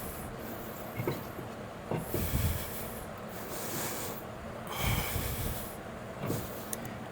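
Brake caliper and tools being worked by hand while the caliper pistons are pushed back to fit new pads: a few dull metal knocks and clunks, two with a scraping hiss.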